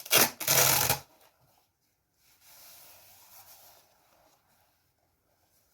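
Two short rasping rubs of handling noise in the first second, then faint rustling.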